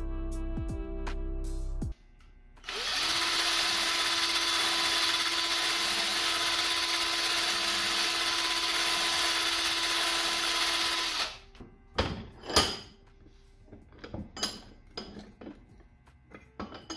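Guitar music for about the first two seconds. Then a drill spins a wire brush wheel against a rusty steel knife blade, polishing off rust and black spots: a steady motor whine under a dense scraping hiss for about eight seconds that stops suddenly. A few scattered clicks and taps follow.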